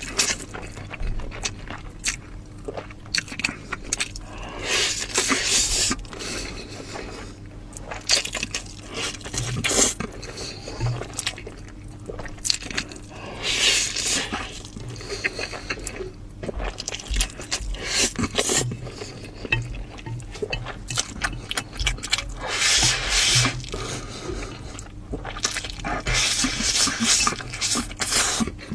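Close-miked eating: wet chewing, smacking and slurping in irregular bursts, with small clicks in between.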